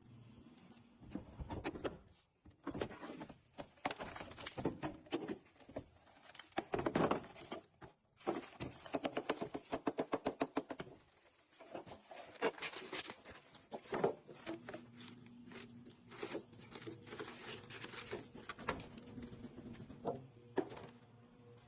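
Close handling sounds: irregular clicks, taps and paper-like rustles, with a quick run of about ten flicks a second about halfway through and a faint steady hum in the second half.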